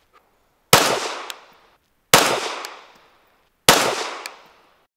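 Three shots from a Sig Sauer P320 pistol, about a second and a half apart, each followed by a fading echo.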